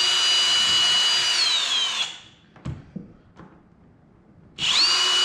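Cordless drill driving screws into a kayak's plastic deck, in two runs: the motor whines at a steady pitch for about two seconds and drops in pitch as the trigger is let go, a few light clicks follow, and a second run starts near the end.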